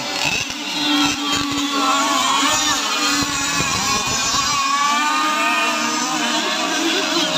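Several RC tunnel catamaran powerboats with small two-stroke petrol engines racing at full throttle. The engines give a steady, high-revving whine that wavers in pitch, and one boat passes close by.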